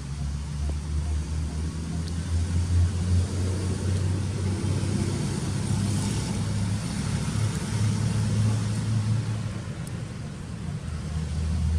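Steady low rumble of outdoor background noise that rises and falls slightly in level.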